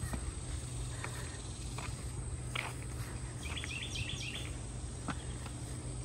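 Songbirds singing: a few short high calls, then a quick run of about half a dozen repeated high notes just past the middle. Underneath is a steady high-pitched insect drone.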